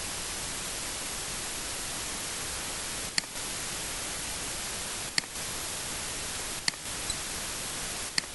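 Steady hiss of recording noise, with four short, sharp clicks about a second and a half to two seconds apart, which are mouse clicks.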